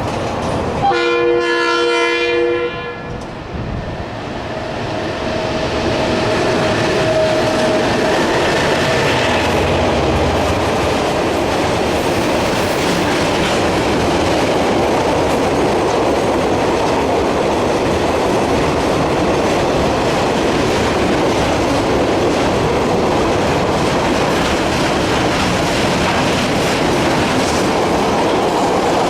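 A DX class diesel-electric locomotive sounds a short chord on its horn about a second in. The train then rolls past with a steady rumble and wheels clacking over the rail joints.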